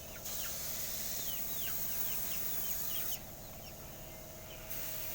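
Paint spraying in hissing bursts: one of about three seconds, then another starting near the end, with small birds chirping in quick falling notes and a faint steady hum underneath.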